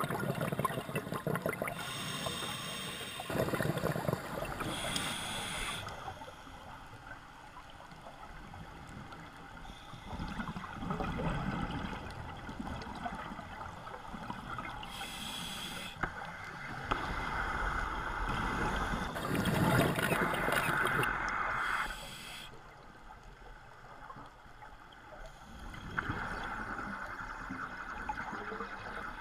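Underwater scuba breathing: bubbles from a diver's regulator rushing and gurgling in bursts every few seconds, with quieter stretches between breaths.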